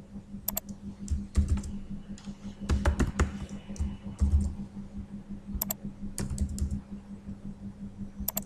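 Computer keyboard typing: scattered keystroke clicks in short runs with pauses between, over a steady low hum.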